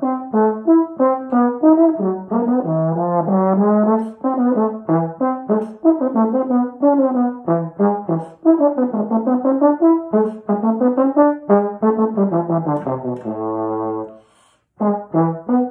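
Solo tenor trombone playing a quick passage of short notes, with runs sweeping down and back up. About 13 seconds in it holds one low note, breaks off for a moment, then carries on.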